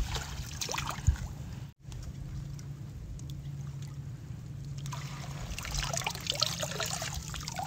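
Shallow seawater trickling and lightly splashing, cut off briefly about two seconds in, then splashing more busily from about five seconds in.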